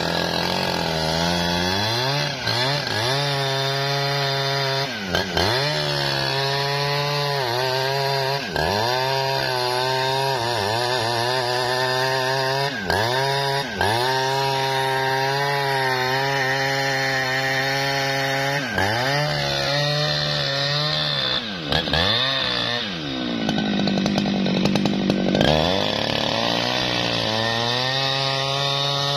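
Jonsered chainsaw cutting through a standing tree trunk. Its engine pitch sags under load and picks back up again and again, with a longer, deeper bog about three quarters of the way through before it recovers.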